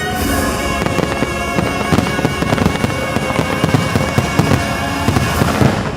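Large aerial fireworks going off in a dense, rapid barrage of bursts over orchestral show music, ending abruptly near the end.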